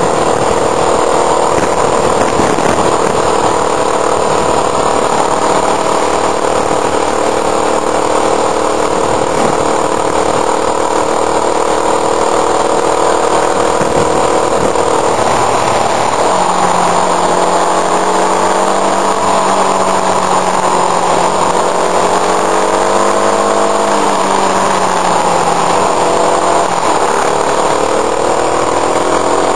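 Motorcycle engine running under way, with wind rushing past the mirror-mounted camera. The engine note holds steady, then about halfway through it drops and wavers up and down as the throttle changes.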